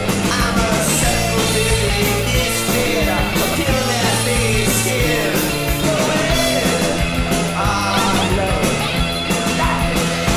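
Rock song playing: a full band with steady drums and bass and a melodic line bending above them.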